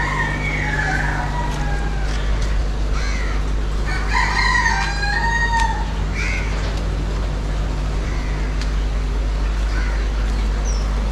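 Rooster crowing, once at the start and again, louder, about four seconds in, over a steady low hum.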